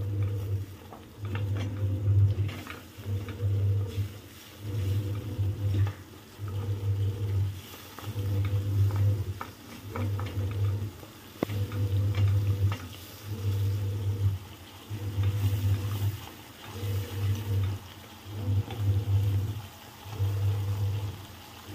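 Electric cooktop humming in regular pulses about once a second as it cycles its power on and off, over a soft sizzle of spiced masala frying in oil in a steel kadai and occasional spatula scrapes.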